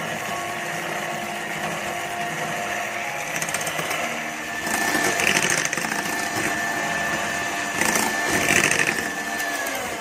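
Electric hand mixer whipping egg whites to stiff meringue, its motor giving a steady whine. The sound turns louder and rougher twice, around the middle and near the end. The whine drops in pitch just before the end as the mixer slows.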